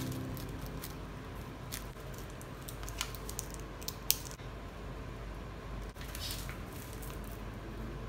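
Light handling of plastic food packaging: a few scattered crinkles and taps over a low steady hum.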